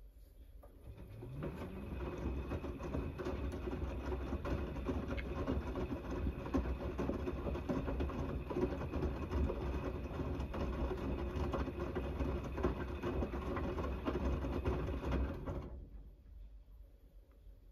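Gorenje WNEI front-loading washing machine in the main wash of a 90° cotton cycle: the drum motor starts with a short rising whine about a second in. The drum then tumbles the wet, sudsy laundry with sloshing and many small knocks for about fourteen seconds, and stops suddenly near the end.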